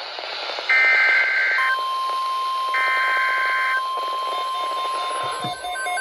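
NOAA Weather Radio receivers sounding an Emergency Alert System tornado watch. Two one-second bursts of warbling SAME data tones play, the header that codes the alert. A steady 1050 Hz weather-radio alert tone comes in under the second burst, and near the end the weather radios' own rapid alarm beeping starts.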